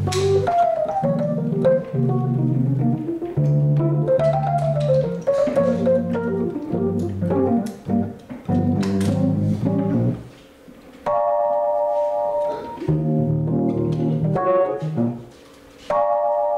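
Fender Rhodes 88 Suitcase electric piano played solo in a funky jazz style: bass notes and chords under quick melodic runs. A bright chord is held and rings out about two-thirds of the way through, and there are two brief pauses between phrases.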